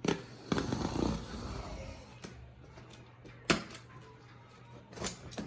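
Large cardboard TV box being cut open along its side: a rasping, scraping cut lasting over a second, followed by a few sharp knocks and clicks of cardboard being handled.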